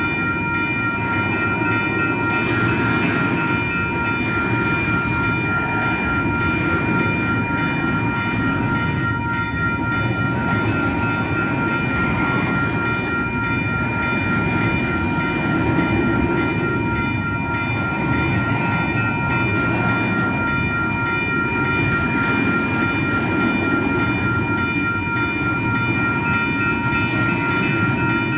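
Double-stack container train's well cars rolling past close by: a steady rumble of steel wheels on the rails, with a steady high whine of several tones over it.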